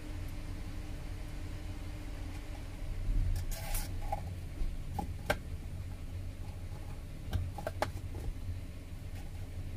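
Hands handling 3M double-sided tape and a plastic car armrest: a brief rustle about three and a half seconds in, then a few small sharp clicks, over a low steady hum.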